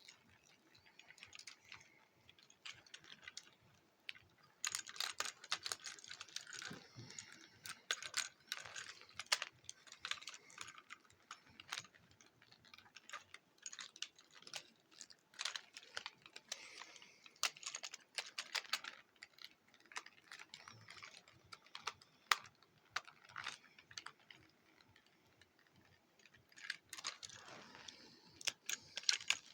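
2007 Transformers Ratchet plastic action figure being transformed by hand: a long run of irregular clicks and snaps as its joints and parts are turned and pressed into place, with bits of handling rustle between them.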